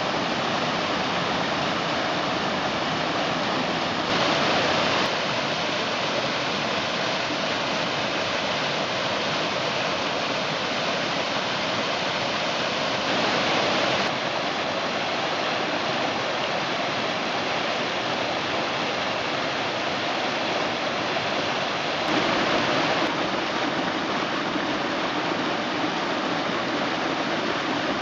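Mountain creek flowing, a steady rush of water that swells briefly louder three times.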